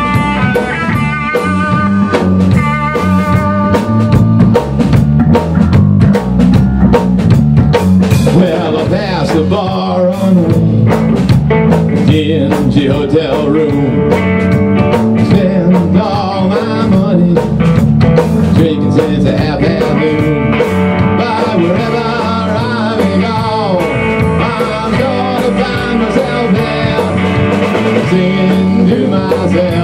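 A rock band playing live through amplifiers: two electric guitars over a drum kit, with a steady beat. Around the middle, one guitar plays bent, wavering lead notes.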